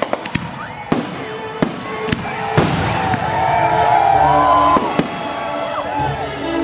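Fireworks display with 1.3G aerial artillery shells and consumer repeater cakes going off in a rapid series of sharp bangs and crackles, with music playing over it.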